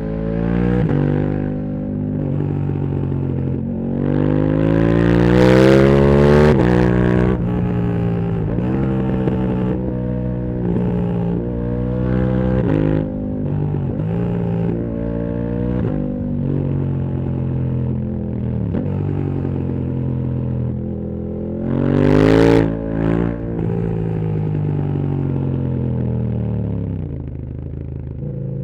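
A KTM 1290 Super Duke R's V-twin engine with a full titanium Akrapovič exhaust, riding with the throttle opened and closed again and again. Its pitch climbs through the revs and drops back repeatedly. The hardest pulls come about five seconds in and again about twenty-two seconds in.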